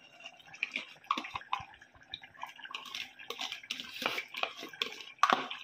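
Steel spoon scraping and tapping in a plastic bowl as thick whipped yogurt and cream is scooped out, with wet plops and irregular clicks as it drops into a clay cooking pot.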